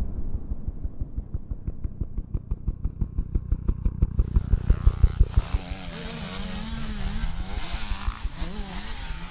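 Motocross dirt bike engine running: a fast, even pulsing for the first half, then from about halfway a pitch that swings up and down over and over as the revs rise and fall.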